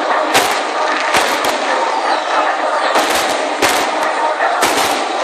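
Fireworks going off: about seven sharp bangs at irregular spacing, some in quick pairs, over steady crowd noise.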